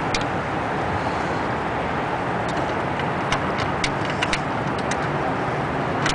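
Scattered light metallic clicks and ticks, starting a little after two seconds in, as a hand tool works the hardware on the steel bracket of a wooden auditorium seat, over a steady background rumble.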